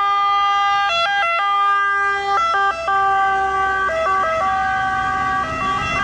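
Electronic siren from a toy ambulance/fire-rescue vehicle's built-in sound unit: a buzzy beeping tone that steps back and forth between a low pitch and a couple of higher pitches in an uneven pattern.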